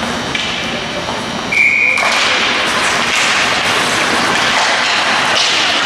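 Ice hockey rink noise: muffled thuds and a wash of crowd and play sound. A short high tone comes about a second and a half in, and right after it the noise steps up louder.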